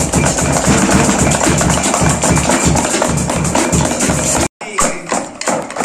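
Drum kit playing a fast groove: steady bass-drum beats under dense, rapid cymbal and drum strokes, with music. It cuts off abruptly about four and a half seconds in, giving way to a sparser, different sound.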